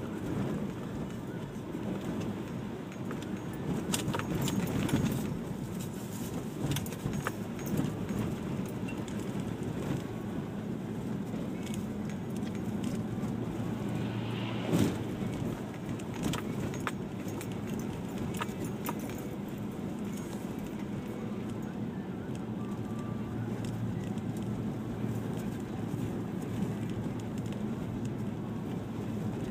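Steady low rumble of a vehicle on the move, with scattered light clicks and rattles and one sharper knock about halfway through.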